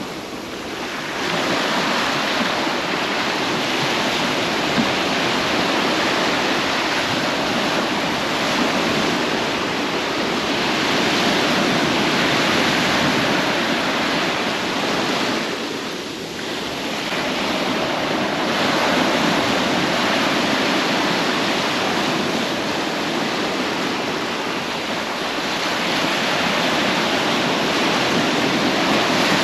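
Ocean waves breaking and washing in, a steady rush that swells and eases, with a brief lull about halfway through.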